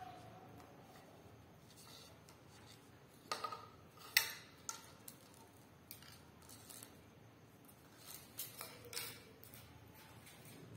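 A small dog playing with a thin hard rod on a concrete floor: scattered clicks and knocks of the rod against the floor and teeth, the loudest about four seconds in and another cluster near the end.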